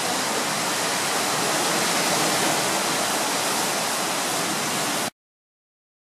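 Steady rushing hiss of ocean surf, cutting off abruptly about five seconds in.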